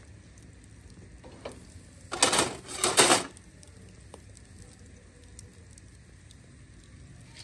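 Marinated chicken skewers cooking over glowing charcoal, with a faint sizzle and small ticks throughout. Two short, loud hisses come about two and three seconds in.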